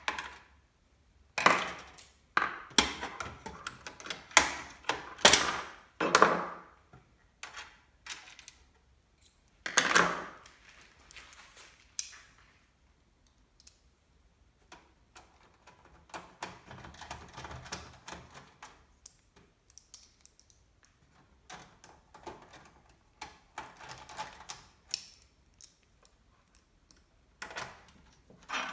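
Irregular clicks, knocks and clatter of computer parts being handled and fitted during PC assembly, louder and more frequent in the first half, with softer rustling between them.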